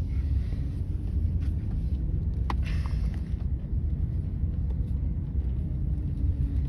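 Steady low rumble of a car's engine and road noise inside the moving car, with a few light clicks.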